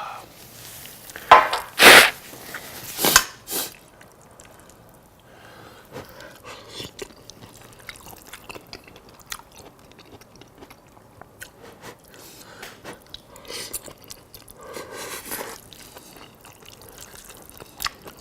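Close-miked eating of spaghetti with meat sauce: wet chewing with many small clicks. A few loud, short breathy bursts come in the first four seconds.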